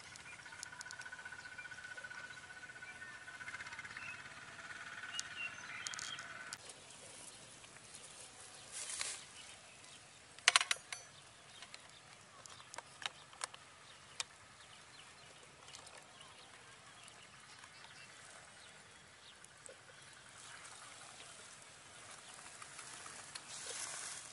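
Quiet outdoor ambience with a steady high tone for the first six seconds, then a few sharp knocks and clatters, the loudest a short cluster about ten seconds in, as a whole watermelon and plastic cups are handled on a woven mat.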